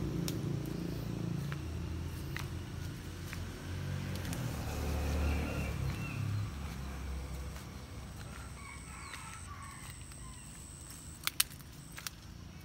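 Low engine rumble of a passing vehicle, swelling to a peak about five seconds in and fading away. After it a thin steady high tone lasts a couple of seconds, and two sharp clicks come near the end.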